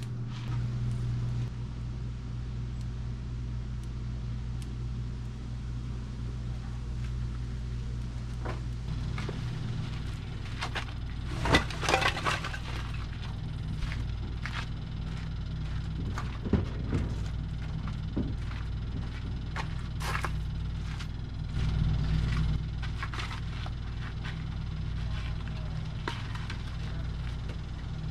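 Split firewood knocking and clattering as pieces are dropped and laid on the ground. The loudest burst of knocks comes about eleven seconds in, with scattered single knocks later, over a steady low hum.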